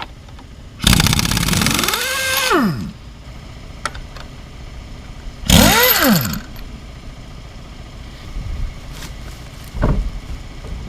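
A power tool's motor in three bursts of one to two seconds, each spinning up in pitch and winding back down. A short knock near the end.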